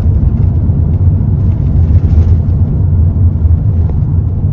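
Skoda Yeti on a test drive, heard from inside the cabin: a steady low rumble of engine and tyres on the road.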